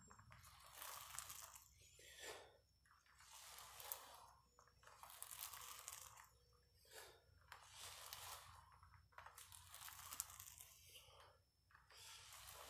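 Ab wheel rolling out and back over the garage floor in repeated faint rasping strokes, one swell every second or two.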